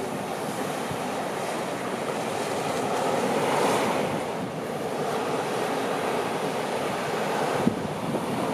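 Surf washing on a sandy beach, with wind gusting on the microphone. A single brief knock comes near the end.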